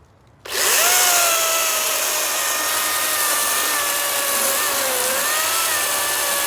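Battery-powered electric chainsaw starting about half a second in and cutting through a log: a steady motor whine over chain noise, dipping in pitch under load a little after the middle.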